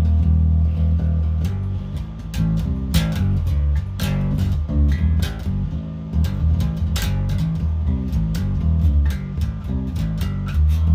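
Glarry electric bass played through a small Peavey Vypyr modelling amp: a riff of low notes that change pitch every fraction of a second, each with a sharp string attack.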